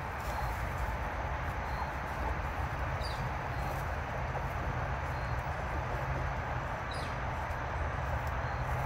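Steady low outdoor background rumble with a faint hum, and two faint short high chirps about three and seven seconds in.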